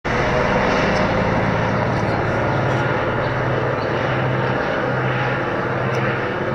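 Helicopter flying low overhead: loud, steady engine and rotor noise with a low hum.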